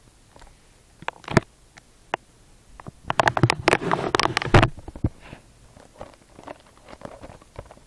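Small cardboard blind box in its plastic wrap being handled: a couple of sharp clicks about a second in, then a dense crinkling rustle for a second and a half, then scattered light ticks.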